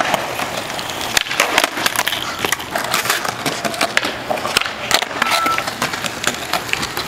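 Skateboard rolling on concrete, with repeated sharp clacks of the board's tail popping, the deck flipping and landing during flatground tricks.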